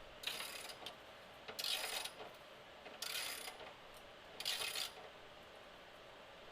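Ratchet wrench clicking in four short strokes, about a second and a half apart, as a bolt of a rear subframe brace is run down.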